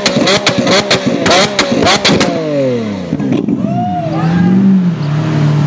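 Lamborghini Aventador's V12 being blipped hard, several quick revs punctuated by sharp exhaust pops and crackles, the sound of its flame-spitting exhaust. About two seconds in the revs fall away, and the engine settles to a steadier low note that rises slightly near the end.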